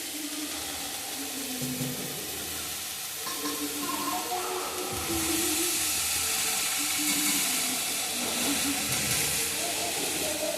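Food sizzling in hot oil in a pan, a steady hiss that grows louder about halfway through.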